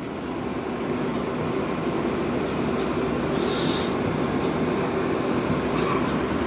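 R142A subway train running, a steady rumble of wheels and motors, with a brief hiss a little past halfway through.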